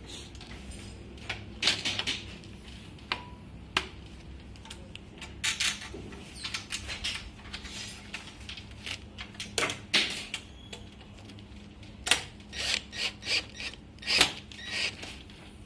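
Irregular clicks, knocks and short scrapes of aluminium sliding-window profiles and plastic roller carriages being handled and seated back onto the rail, over a faint steady hum.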